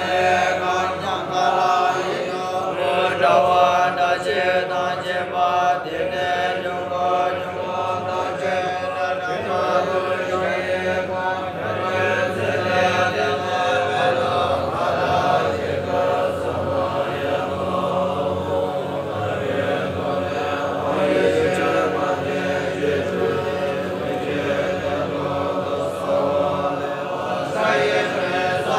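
A large group of Bon monks chanting scripture together in unison, a steady continuous recitation of many blended voices.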